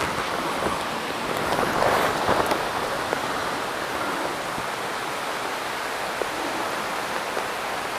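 Heavy rain falling steadily, an even hiss with a slight swell about two seconds in and a few faint drop ticks.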